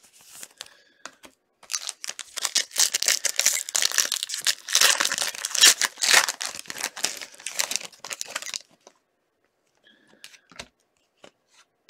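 Shiny trading-card pack wrapper being torn and crinkled by hand for several seconds, then a few light clicks as the cards are handled.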